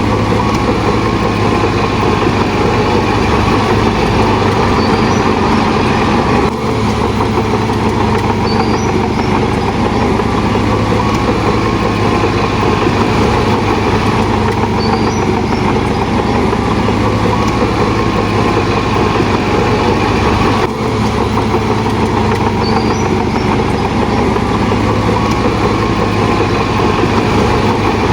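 Heavy diesel earthmoving machinery running steadily under load, with a low engine drone, faint high squeaks recurring every few seconds and two brief dips in level.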